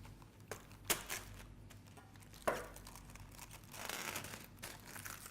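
Food packaging crinkling and rustling as the warm treacle tart is taken out and handled, with two sharp clicks, about one second and two and a half seconds in.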